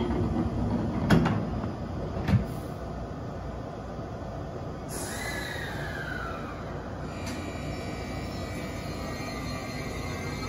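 E653 series train at the platform: two sharp knocks about a second apart as its sliding doors shut, then about five seconds in a hiss of released air with a falling tone, over a steady low rumble as the train starts to pull away.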